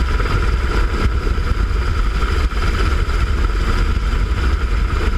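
Helicopter hovering, heard from its open cabin door: steady rotor and engine noise, a heavy low rumble with a constant whine above it.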